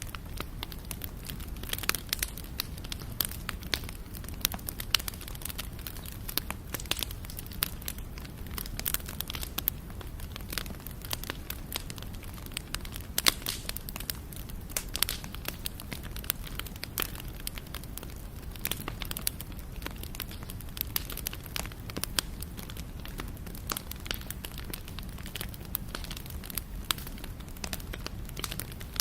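Wood campfire burning, with dense, irregular sharp crackles and pops over a steady low rumble.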